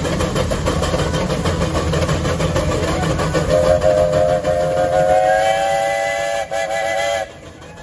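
Steam traction engines working under load on a pulling track, their exhaust a loud, dense rumble. About three and a half seconds in, a multi-note steam whistle starts blowing with several tones sounding together. It breaks briefly near the end, then cuts off suddenly.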